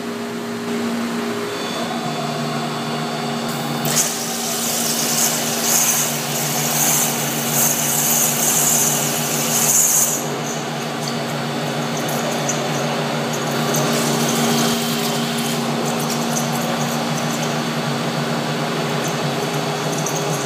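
Abrasive waterjet machine cutting aluminium plate, a steady machine hum with a loud high hiss from the jet that comes on suddenly about four seconds in and drops away about ten seconds in.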